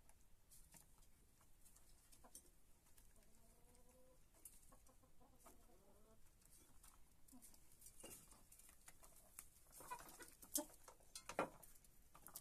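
Hens pecking food from a metal bowl, their beaks tapping against it in short sharp clicks, with a few soft low clucks. The taps grow louder and closer together near the end as more hens crowd in to feed.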